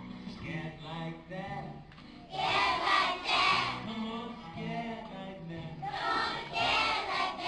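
A group of young children singing together. Loud phrases come about 2.5 s in and again about 6 s in, with quieter stretches between them.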